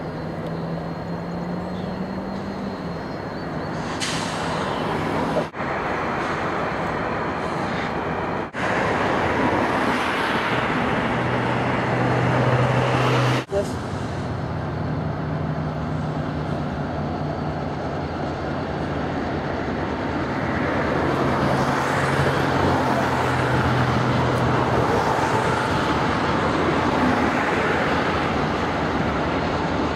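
Diesel locomotives running in a rail yard, a steady low engine drone, broken by a few abrupt cuts. In the second half it gives way to a louder rumble as a train of freight cars rolls past close by.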